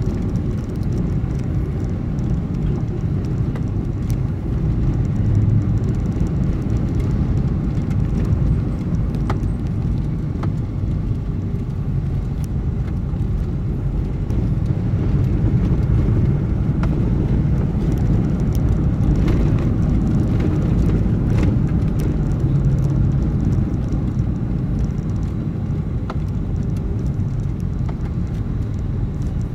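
Steady low rumble of a road vehicle on the move: engine, tyre and wind noise.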